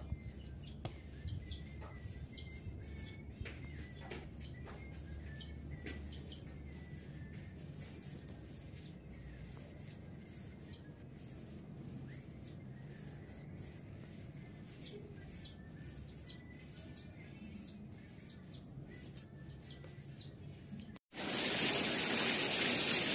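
Small birds chirping, many short high chirps about two a second, over a faint low hum. About 21 seconds in, a loud steady hiss suddenly takes over.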